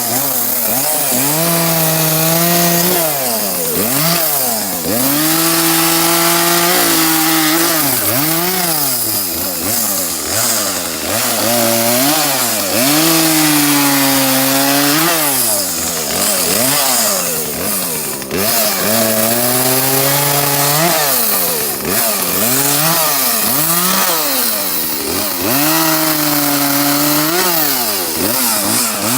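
Two-stroke chainsaw revving up and down over and over, held at high speed for a second or two at a time, as limbs are cut from a cedar tree.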